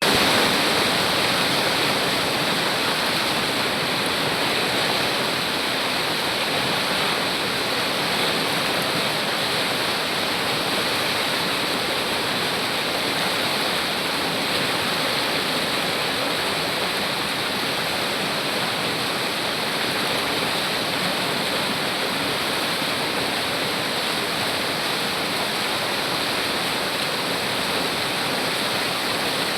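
Fast-flowing river or stream water rushing steadily.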